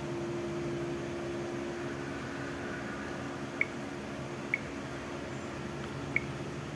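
Three short, high beeps from a Samsung Galaxy 550 phone's touch-feedback sound as its menu items are tapped, over a steady background hum with several low tones.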